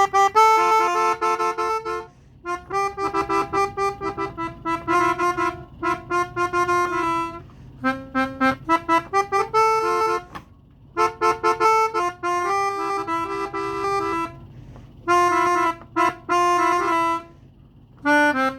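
Pianika (melodica) playing a World Cup song melody in phrases of quick notes, with brief pauses between the phrases.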